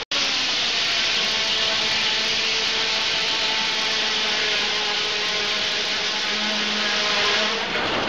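Large circular saw blade of an old carriage sawmill ripping through a log: a loud, steady hiss with a faint whine. It breaks off shortly before the end, as the cut finishes.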